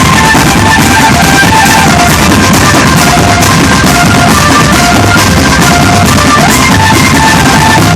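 A drum band playing loudly: dense drumming and cymbal crashes under a melody of short, high held notes.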